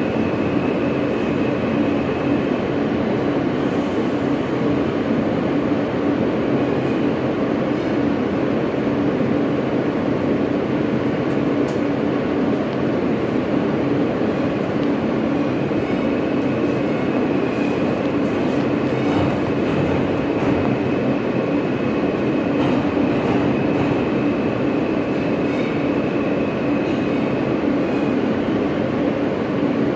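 Alstom R160A New York City subway train running on the track: a steady rumble with a low hum throughout, and a faint high whine that fades in the first few seconds and comes back around halfway through.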